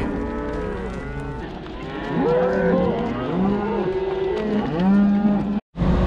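Herd of beef cattle mooing, many deep and higher-pitched calls overlapping one another. The sound drops out briefly near the end.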